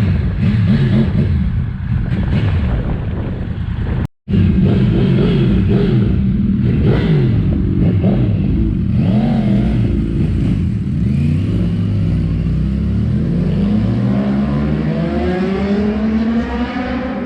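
Rebuilt 2013 Yamaha R1 sportbike's inline-four engine being ridden and revved, its pitch rising and falling with the throttle, then climbing steadily near the end as it accelerates. The sound cuts out briefly about four seconds in.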